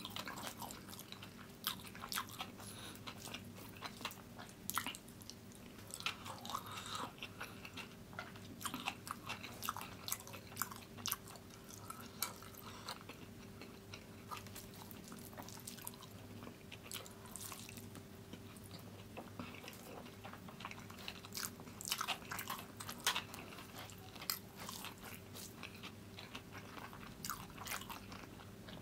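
Close-miked eating sounds: mouthfuls of chicken biryani chewed with frequent short wet clicks and smacks of the mouth and fingers. A faint steady hum lies underneath.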